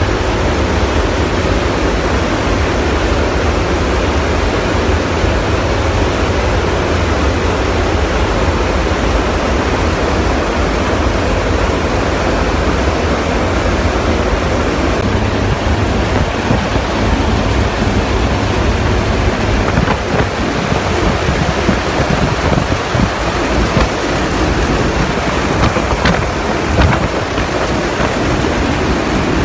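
Loud, steady rush of wind and engine noise inside the hold of a transport aircraft flying with its rear cargo ramp open, the airflow buffeting the microphone. A brief knock is heard near the end.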